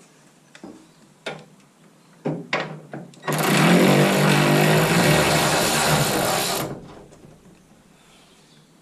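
A few knocks and clicks, then a power tool runs in one steady burst of about three seconds that stops abruptly.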